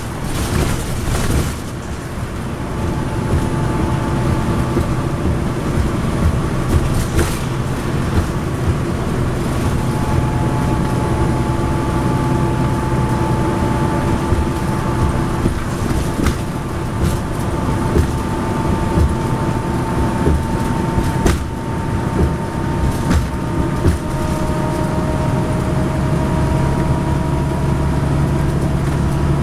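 Cabin sound of a NABI 40-SFW suburban transit bus with a Cummins ISL9 diesel under way on the highway: steady engine and drivetrain hum with a thin whine over road rumble. A few sharp rattles and clicks come through now and then.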